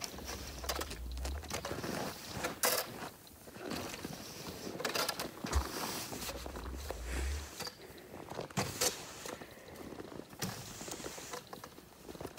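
Push broom on an extendable pole pushing snow across the glass of solar panels, with irregular scrapes and knocks and the snow sliding off and falling.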